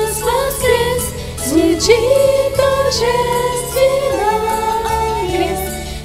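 A group of young girls singing a Christian song together into microphones over instrumental accompaniment, with long held notes that slide between pitches.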